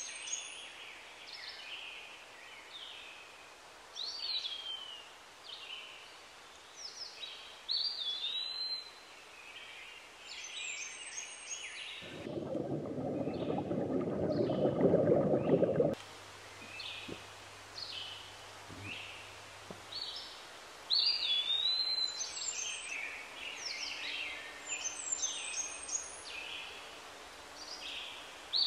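Forest birdsong, with several birds calling and one whistled call that rises and falls recurring many times. About twelve seconds in, the birds drop out for some four seconds of loud rushing stream water, and then the birdsong comes back.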